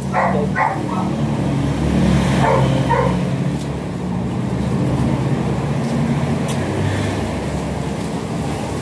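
A dog barking in short pairs, twice near the start and twice again about two and a half to three seconds in, over a steady low hum.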